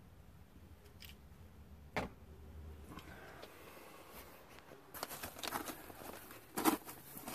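Handling noises from a beehive being opened: a single click about two seconds in, then rustling and scraping from about five seconds in, with a sharp knock near the end.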